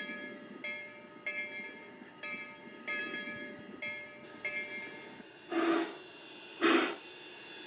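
Model Blue Comet steam locomotive running past: a rhythmic ringing sound about every two-thirds of a second, then two loud short whistle blasts about a second apart near the end.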